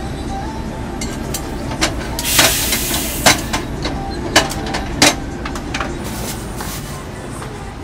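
Metal clanks of the cast-iron hotteok press covers and tools on the griddle, several sharp knocks, with a short hiss about two seconds in, over a steady low rumble.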